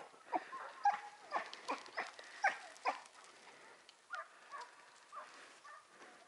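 Hunting hounds baying on a hare's trail, short barks about twice a second, fainter after about three seconds.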